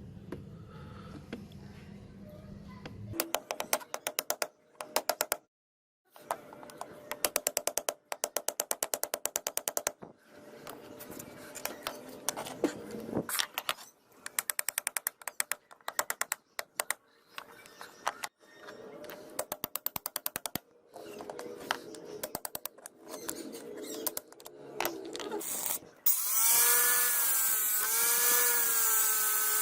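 Tool work on a rusty steel knife blade in a series of short cuts: rapid trains of clicks and knocks, at times about ten a second. Near the end a power tool runs loud with a hiss and a wavering whine.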